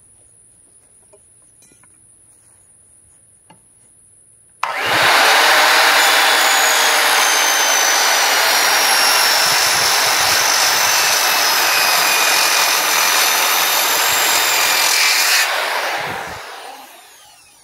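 Circular saw starting suddenly about four and a half seconds in and cutting into a wooden fence post for about eleven seconds, its pitch sagging slightly under load, then released and spinning down. The cut goes about 3.5 inches into the post, not all the way through.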